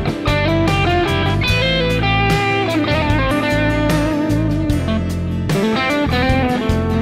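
Electric guitar played through an overdrive pedal into the Mooer GE200 multi-effects and one of its cabinet impulse responses, recorded direct: a run of picked notes and chords over held low notes.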